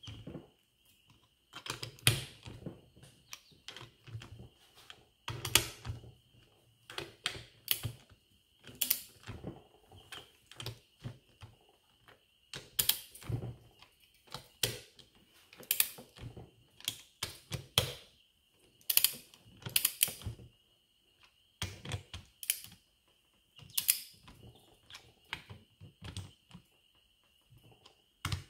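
Ratchet head of a click-type torque wrench clicking in short, irregular bursts as the bolts on a hydrostatic transmission's aluminum case are run down snug.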